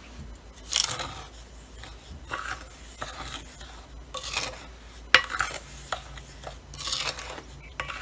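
A utensil stirring and scraping in a bowl, mixing batter: short swishes roughly once a second, with a sharp knock against the bowl about five seconds in.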